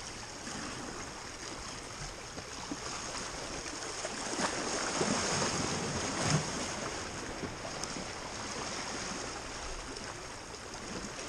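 Sea waves washing on the shore, a steady rushing noise that swells a little around the middle, with some wind on the microphone.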